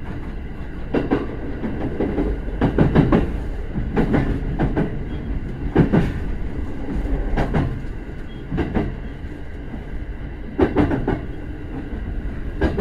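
Shinano Railway SR1 series electric train running, with a steady rumble and sharp wheel knocks over rail joints at irregular intervals, about a dozen in all.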